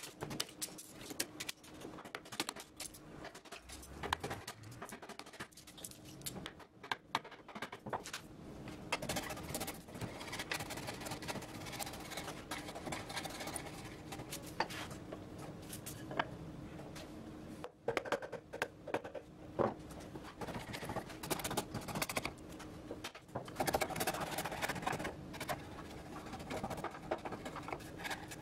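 Hand chisel breaking out and paring the saw-kerfed waste from a notch in a timber block: an irregular run of sharp clicks and cracks as the slivers split away, over a steady hum. Near the end, sandpaper rubbing over the cleaned notch.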